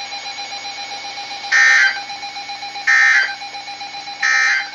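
Emergency Alert System end-of-message data bursts: three short, harsh digital tone bursts about 1.4 seconds apart, the signal that closes the alert, over a faint steady tone.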